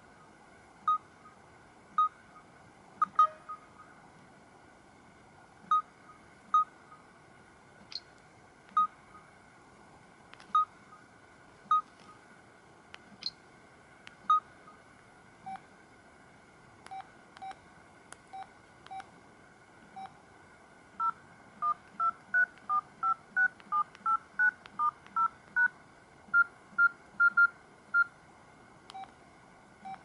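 Samsung Corby GT-S3650 touchscreen key tones: short electronic beeps as the screen is tapped, mostly one every second or so. In the last third comes a quicker run of about two beeps a second, at shifting pitches.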